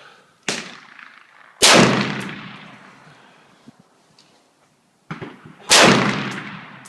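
AR-15 rifle firing single shots: two loud shots about four seconds apart, each ringing off in a long echoing decay. A quieter shot comes about a second before each loud one.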